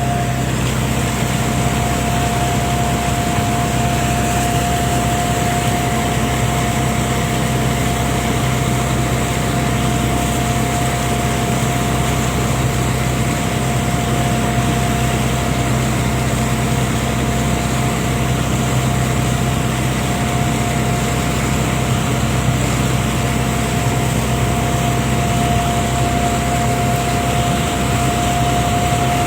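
Fishing boat's engine running steadily at constant speed, a continuous hum with a steady whine above it.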